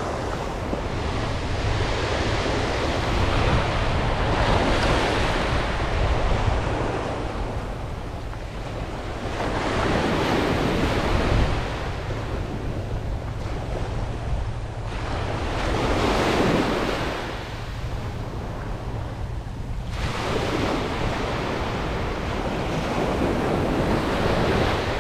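Small ocean waves breaking and washing up a sandy beach, swelling and ebbing about every five to six seconds, with a steady low rumble of wind on the microphone.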